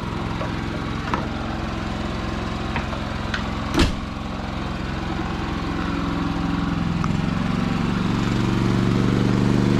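Small portable inverter generator engines running steadily. There is a single sharp knock about four seconds in. In the last few seconds the engine pitch rises and the sound grows louder.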